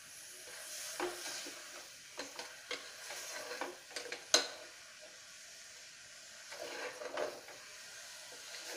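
A metal spoon stirring beef pieces into onion-tomato masala in a pressure cooker, with scrapes and sharp clinks against the pot over a faint sizzle. The loudest clink comes about four seconds in.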